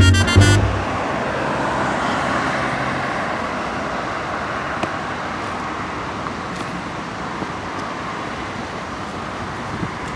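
Steady road traffic noise from a wide city street, an even rush with no single vehicle standing out. A swing-band jingle cuts off about half a second in.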